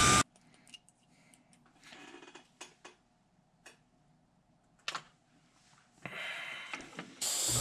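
Hair dryer blowing, shut off abruptly just after the start. Then a few faint clicks and knocks of handling, and near the end an airbrush starts spraying with a loud hiss.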